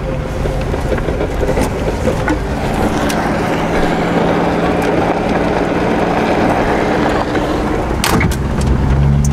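Holden EH driving on an unsealed dirt road: engine running under the steady rumble of tyres and road noise, with a couple of sharp knocks near the end.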